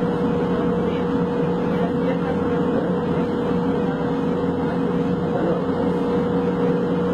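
Light-rail carriage running, heard from inside: a steady rumble of the moving train with a constant hum held at one pitch throughout.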